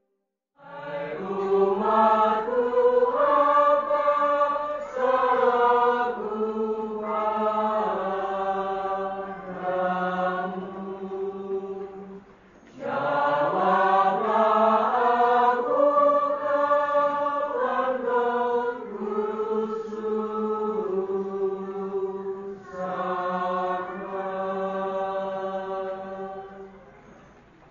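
Church choir singing a slow Good Friday chant: long held notes in two phrases, with a short break about halfway through.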